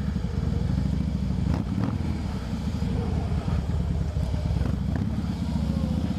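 Harley-Davidson V-twin motorcycle engine running steadily, its low, even exhaust pulse close to the microphone.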